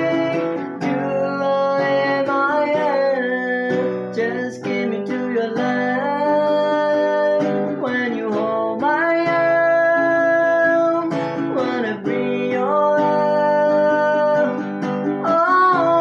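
Guitar-led music: acoustic guitar strumming under a lead melody that slides and glides between notes.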